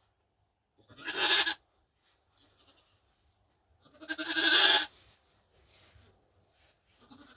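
Nigerian Dwarf goat bleating twice: a short call about a second in, then a longer call about four seconds in.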